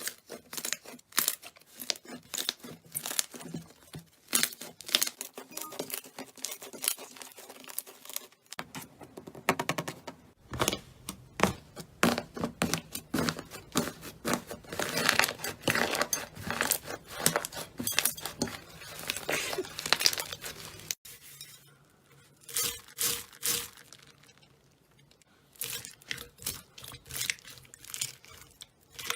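Slime being squeezed and poked by hand: dense runs of crackling clicks and pops, in several short clips, with a quieter stretch about two-thirds of the way through.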